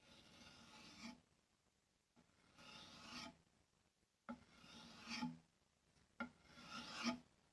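Knife blade being stropped on a wooden board: four strokes of steel drawn across wood, about two seconds apart, each growing louder toward its end. This is the step that takes the burr off the freshly sharpened edge.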